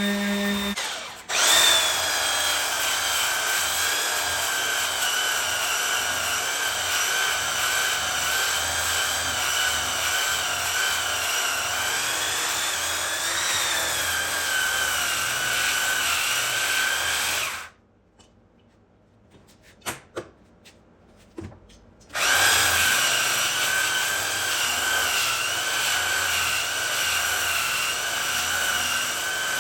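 Electric sander running on cherry wood with a steady whine. It starts about a second in, shuts off a little past halfway, then after a few seconds of quiet with a few small clicks it starts again and runs on.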